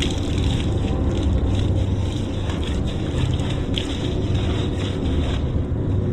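Steady low rumble like a running motor, with wind buffeting the microphone.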